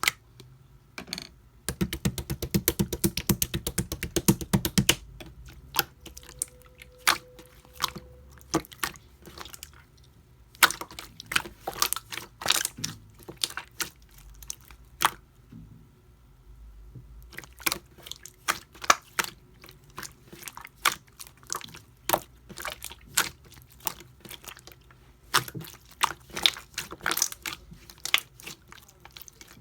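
Pink jelly-textured slime being squished and pressed by hand, giving sticky clicking pops. A fast run of clicks comes about two seconds in and lasts about three seconds, then the pops come scattered and uneven.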